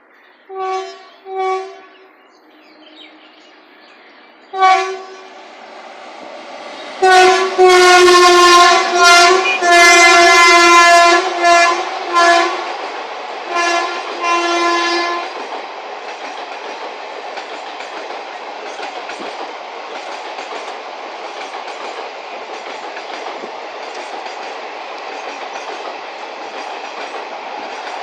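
WAG-9 electric locomotive's horn sounding: three short toots, then from about seven seconds in a string of long, loud blasts. After the horn stops, the steady wheel noise of the freight train's wagons rolling past carries on.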